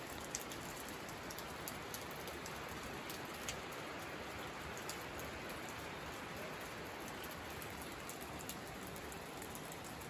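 Rain and water drops falling steadily onto wet leaves and rocks: an even hiss with scattered single drop ticks.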